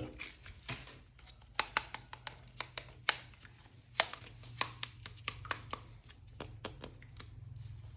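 Irregular light clicks and taps of hands handling a plastic action figure, over a faint low hum.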